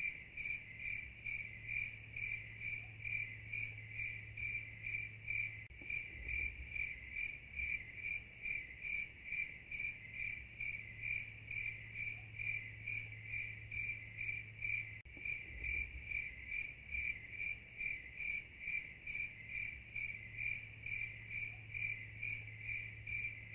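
Insect chirping: a steady, shrill, cricket-like song pulsing evenly at about five pulses every two seconds.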